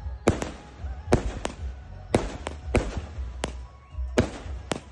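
A 49-shot consumer firework cake firing, about ten sharp bangs in under five seconds, unevenly spaced as the shots go off one after another.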